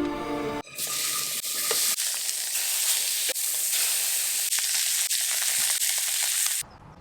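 Food sizzling in a hot pan: a steady frying hiss with scattered pops that starts just after a brief bit of music and cuts off suddenly near the end.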